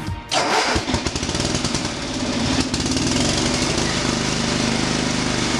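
Riding lawn mower's small engine running steadily with a fast, even pulse. A snatch of electronic music cuts off just at the start.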